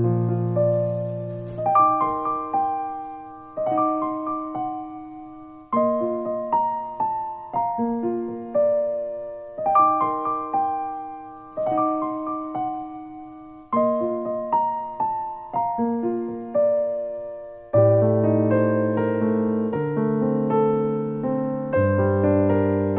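Background piano music: a gentle melody of single decaying notes in short phrases that repeat, growing fuller with low chords about three-quarters of the way through.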